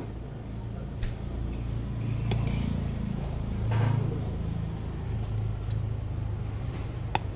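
Metal spoon and fork clinking against a plate a few times during eating, one clink ringing briefly near the end. Under it runs a steady low engine rumble that swells about two and a half and four seconds in.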